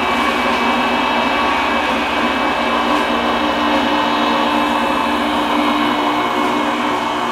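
Electric fish grinder making chum, running steadily and loudly as it grinds fish.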